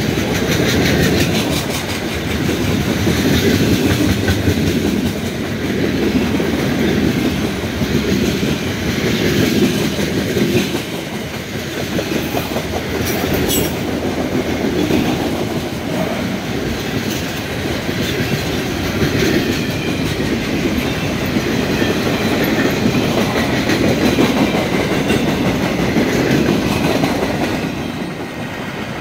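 Freight cars (autoracks, tank cars, covered hoppers and boxcars) rolling past close by: a steady rumble of steel wheels on rail with clickety-clack over the rail joints, rising and falling in waves as the cars go by. The sound fades near the end as the last cars pass.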